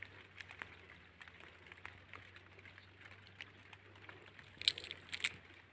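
Faint crackling and rustling of a green cotton boll being pulled apart by hand, with two sharper crackles near the end.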